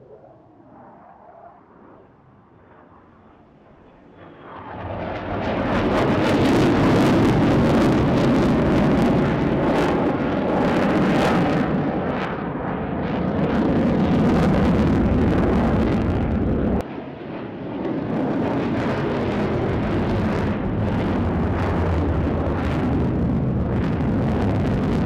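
Twin-engine F/A-18-type jet fighter flying a display pass. A faint low rumble grows about four seconds in to loud, full jet-engine noise that swells and eases as the aircraft manoeuvres. The noise drops sharply for a moment near the middle, then returns.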